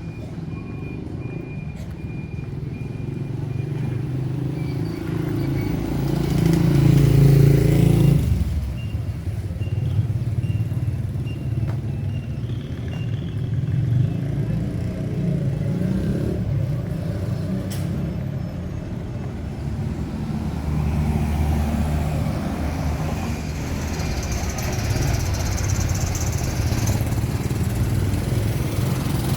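Street traffic: motor vehicle engines running and passing, with one vehicle passing close and loudest about seven seconds in.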